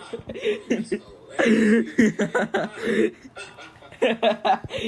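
A man's voice laughing in wheezing bursts after a joke's punchline, with a quieter gap a little after three seconds in.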